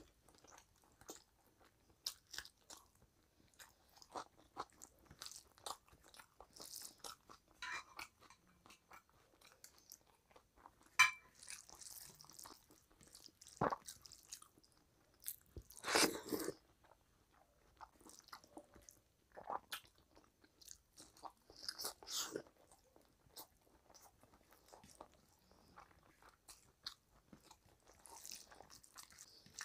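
Close-miked chewing and wet mouth sounds of a person eating rice and curry, with the squish of rice being mixed by hand on a plate. Irregular short clicks and smacks run throughout, with a couple of louder smacks about 11 and 16 seconds in.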